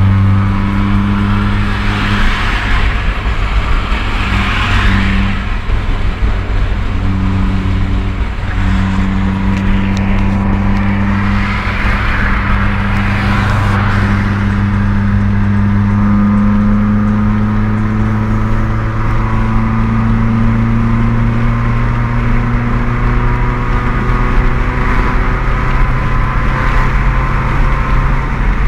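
Toyota AE86 running with a steady drone and low tones whose pitch drifts slowly up and down, with a hissy swell twice. It carries the weird noise that the owner puts down to the driveshaft.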